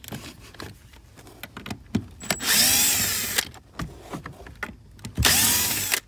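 Cordless power drill with a 10 mm socket spinning off plastic nuts: two short runs of about a second each, one about two and a half seconds in and one near the end, the motor speeding up and slowing down in each. Small handling clicks in between.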